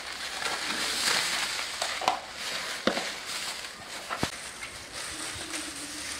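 Raw lamb cuts and bone pieces being set down into a large aluminium basin, with three sharp knocks on the metal and a steady crinkling of plastic bags.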